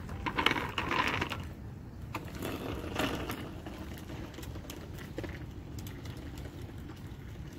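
Child's bicycle with training wheels rolling along a concrete sidewalk: a steady low rumble with rapid light rattling and clicking, loudest in the first second or so.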